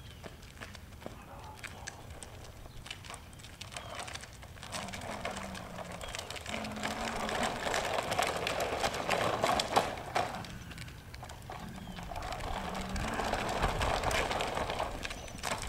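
Hard plastic wheels of a toddler's push tricycle rolling and rattling over asphalt as it is pushed by its parent handle, in two stretches, the first about a third of the way in and the second near the end.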